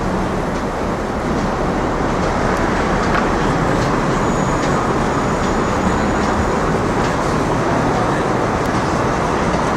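Steady city street traffic noise: a continuous rumble of passing vehicles, with a few faint clicks and a faint high whistle near the middle.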